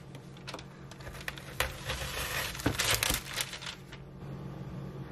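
A paring knife cutting through a chocolate-dipped Ritz cracker sandwich with peanut butter filling: scattered small cracks, then a denser run of crackling and crunching in the middle as the cold, set chocolate shell and crisp crackers break.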